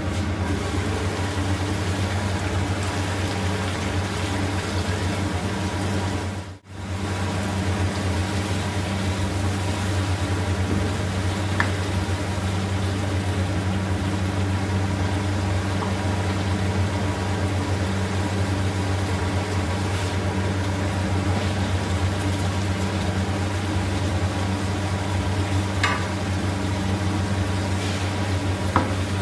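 Potato curry simmering and sizzling in a wok, over a steady low hum, with a few light knocks of a spatula against the pan. The sound drops out briefly about six and a half seconds in.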